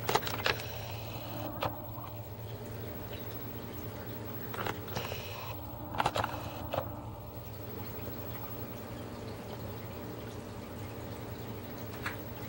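Aquarium water trickling and dripping steadily over a low hum. A few louder drips stand out: at the start, around five to seven seconds in, and near the end.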